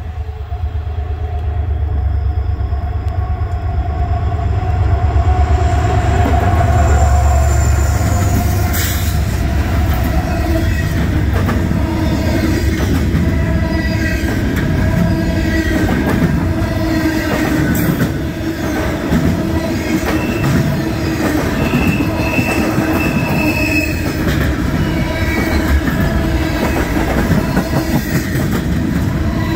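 Norfolk Southern intermodal freight train passing close by: the diesel locomotive's low rumble builds and peaks in the first several seconds. The stack and trailer cars then roll past with rhythmic clacking of wheels over the rails and intermittent high wheel squeal.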